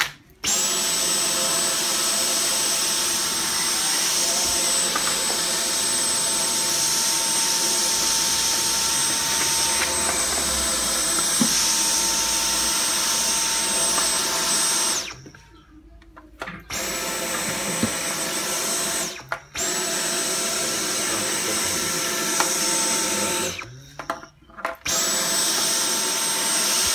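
Dyson V10 cordless stick vacuum running at the floor, sucking up dust, with a steady high whine from its motor that rises each time it starts. It stops and starts again three times, at about 15, 19 and 24 seconds in.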